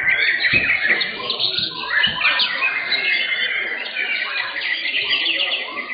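White-rumped shamas (murai batu) singing in rapid, overlapping chirping phrases, with voices in the background.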